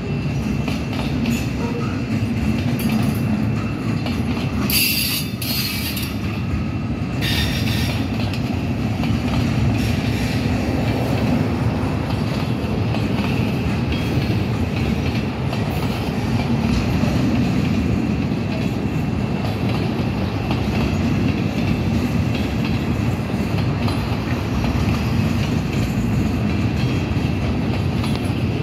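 Freight cars (centerbeam lumber cars and covered hoppers) rolling past: a steady rumble and clatter of steel wheels on the rails. Two brief high-pitched wheel screeches come about five and seven seconds in.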